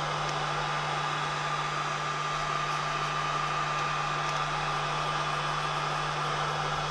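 Electric heat gun running steadily, blowing hot air with a low motor hum and a thin steady whine, heating vinyl wrap film so it can be smoothed on.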